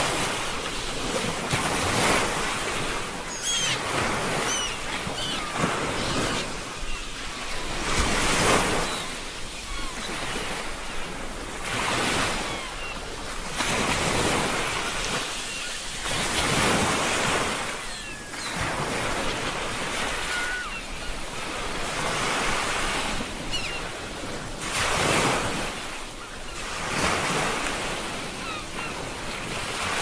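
Ocean waves breaking and washing on a beach, the surf swelling and easing every few seconds.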